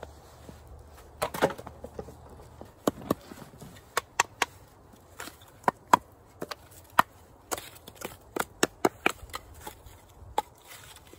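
Dry wooden sticks knocking and clacking together as they are handled and laid down on snow for a fire, a run of sharp irregular clacks.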